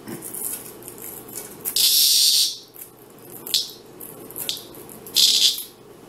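Dog-day cicada buzzing in short, high-pitched bursts: a long one about two seconds in, two brief ones, and another near the end. It is the defensive buzz of a healthy, active cicada disturbed by a mantis.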